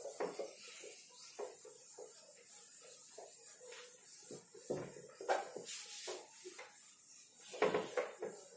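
A cloth duster rubbing across a whiteboard, wiping off marker writing in a run of irregular back-and-forth strokes.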